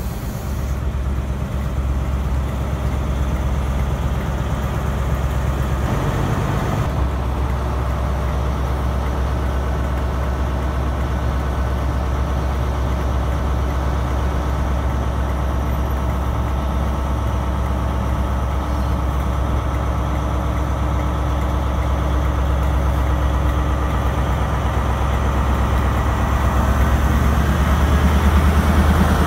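Diesel engine of a Class 43 HST power car running steadily with a deep hum, louder over the last few seconds as the power car comes close.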